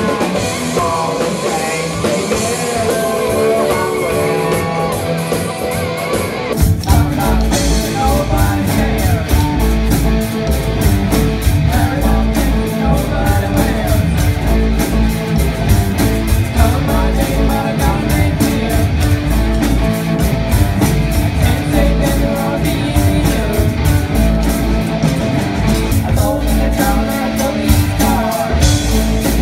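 Live rock band with singers, electric guitar, bass, keyboard and drum kit. It opens with a lighter passage of singing over held chords, then about seven seconds in the full band comes in with drums and bass.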